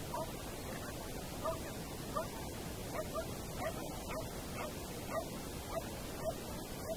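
A dog giving short high yips, about a dozen in a row at one or two a second, while running an agility course.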